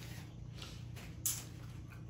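Faint eating noise: a single brief wet smack a little over a second in, over a low steady hum.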